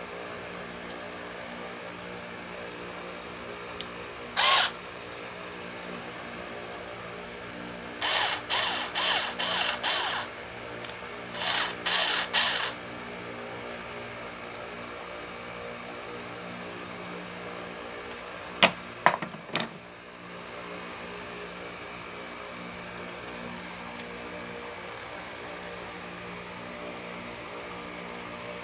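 Cordless screwdriver and its flexible shaft extension being handled: short bursts of plastic-and-metal clatter, a quick run of them about eight seconds in, and three sharp clicks near the middle, over a steady low hum.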